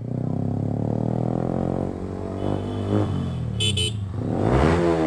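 A Yamaha R15M's single-cylinder engine with a full aftermarket exhaust running under way, with other motorcycles close by. A horn gives two quick beeps about three and a half seconds in, and near the end an engine revs up sharply.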